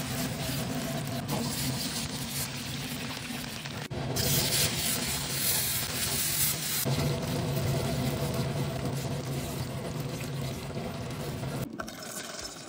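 Hot oil sizzling and bubbling as sliced shallots deep-fry, then dried chillies frying in a wok, stirred and scraped with a wooden spatula. The sizzle is steady, breaks off abruptly a few times and is louder from about four seconds in.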